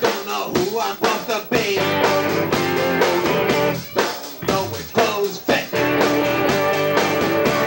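Live rock band playing a punk song: electric guitar and drum kit, with singing.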